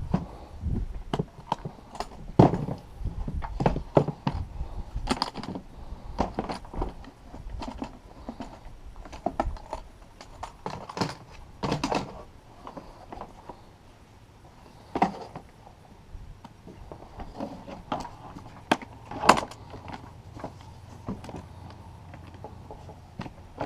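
Irregular clicks, knocks and rattles of hands and tools working on a pickup's plastic air filter housing, with a few sharper knocks among them.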